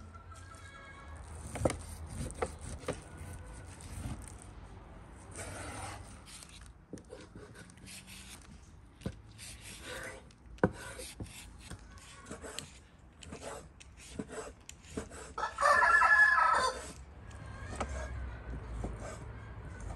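A rooster crows once, about three-quarters of the way through, the loudest sound. Around it come the small sounds of food preparation: a vegetable peeler scraping a potato and a knife cutting raw meat on a wooden board, with scattered sharp clicks.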